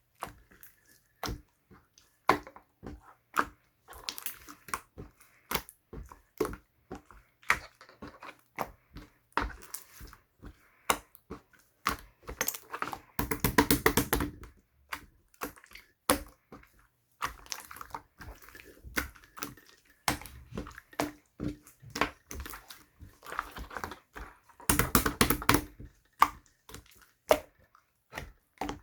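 Bubble slime being squeezed and pressed by hand, giving irregular sticky clicks and pops of trapped air. The popping thickens into a dense crackle about halfway through and again near the end.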